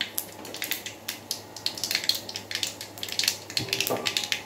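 Mustard seeds and whole spices spluttering in hot oil in a kadai: rapid, irregular crackles and pops.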